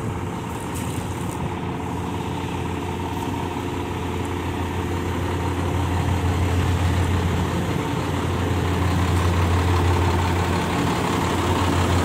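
Engine running steadily with a low hum, growing gradually louder.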